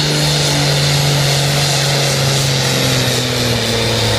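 Modified pulling tractor's diesel engine running flat out as it drags a weight-transfer sled, one loud steady note whose pitch slowly sags under the load.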